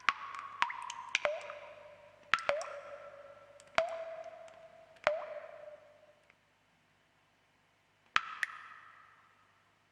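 Water drops dripping at an irregular pace, each a sharp plink followed by a short ringing tone. About ten drops fall, some in quick pairs, with a pause of nearly two seconds before a last pair near the end.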